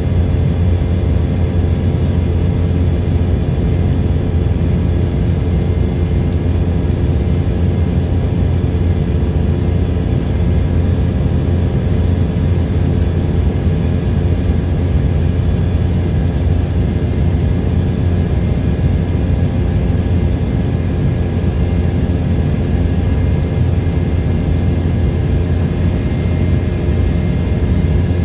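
Cabin noise of an Embraer 190 airliner in flight, heard from a window seat: a steady, deep drone of airflow and its two GE CF34 turbofan engines, with several constant hums and whines on top.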